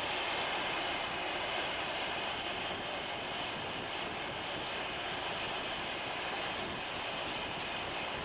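Steady hiss of steam escaping from a 1914 Rumely 20-60 steam traction engine standing with steam up.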